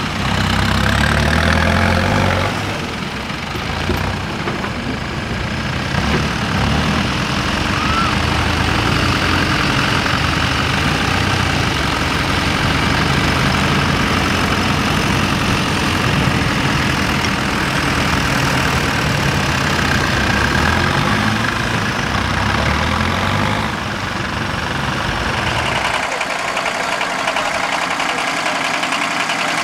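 Tractor engines idling and running at low speed, their low beat shifting in pitch several times. Near the end the deep rumble drops away, leaving lighter, higher-pitched engine noise.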